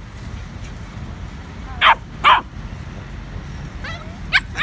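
A small dog yapping during play: two sharp yaps close together about two seconds in, then another near the end.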